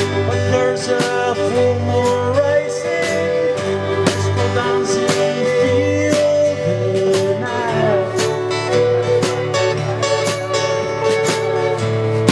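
Music: an acoustic, guitar-led piece with plucked strings and sustained, gliding melody notes.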